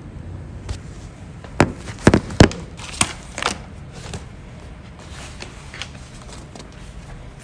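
A quick run of sharp clicks and knocks: five loud ones within about two seconds, starting a second and a half in, then a few fainter ones, over a steady low hum.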